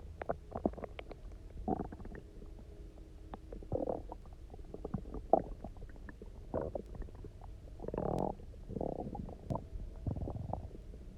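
Empty human stomach gurgling and rumbling with hunger after a day's fast, with a lot of water drunk: a run of short gurgles and pops, with longer gurgles about eight and ten seconds in.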